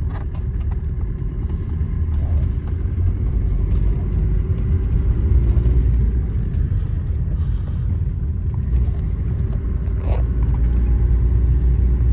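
Steady low rumble of a car being driven slowly, heard from inside the cabin: engine and tyre noise, swelling slightly now and then.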